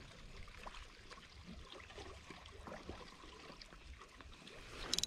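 Faint water lapping around a kayak, with small handling ticks from the spinning rod and reel, and a short burst of sharp clicks near the end.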